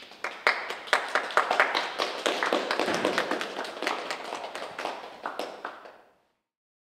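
A small group of people clapping, many separate sharp claps in quick succession, fading out about six seconds in.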